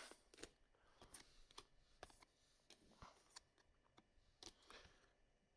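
Near silence with faint, scattered clicks and soft flicks of trading cards being handled and turned over.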